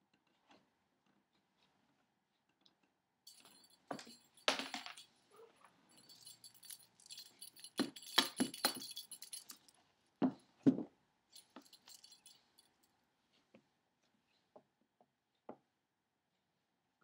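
A small jingle bell jingling in irregular bursts while a cat bats at a feather wand toy, with two thumps of the cat on the wooden floor about ten seconds in.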